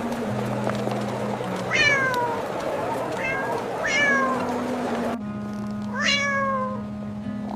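A cat meowing four times, each call falling in pitch and the second one short, over a low steady background music drone.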